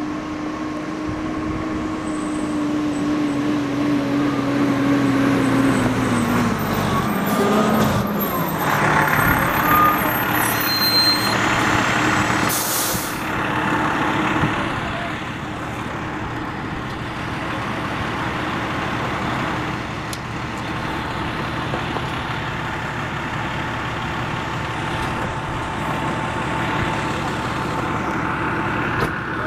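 Fire engines driving past close by, their engines and tyres making a steady loud noise. A held pitched tone slides down and stops about seven seconds in. A short, sharp hiss of air brakes comes about halfway through.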